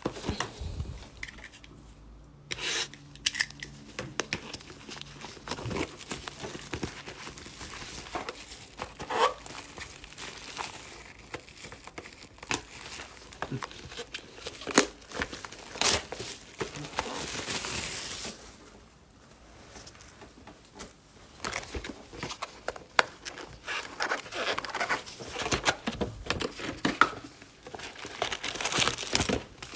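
Packaging of a new box of trading cards being opened: plastic wrap and foil pack wrappers crinkling and tearing, with irregular sharp clicks and handling knocks, and a short lull about two-thirds of the way through.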